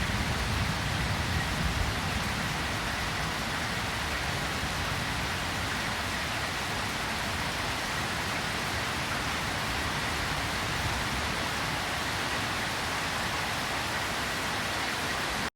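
Steady rain, a dense hiss of drops falling on surfaces, with the tail of a low thunder rumble dying away over the first couple of seconds. The sound stops abruptly near the end.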